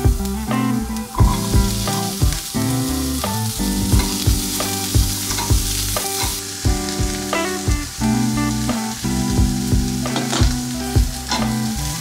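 Chopped vegetables sizzling in a hot nonstick frying pan while a spatula stirs them, knocking and scraping against the pan. The sizzle swells about a second in as more vegetables are tipped in from a bowl, and eases a little past halfway.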